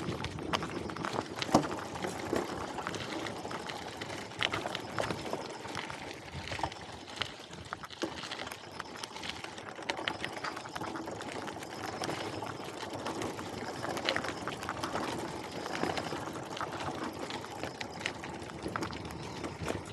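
Bicycle in motion with a dog sidecar attached: steady rolling noise with a continual rattle of small clicks and knocks.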